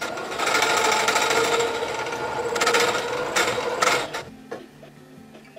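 Electric domestic sewing machine running at speed, stitching a seam through layered cotton patchwork strips, then stopping about four seconds in.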